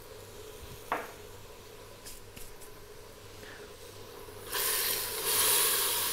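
Faint steady hum with a single click about a second in; then, about four and a half seconds in, a wooden spoon starts stirring tomatoes, onion and spices in the pressure cooker pan and they sizzle loudly.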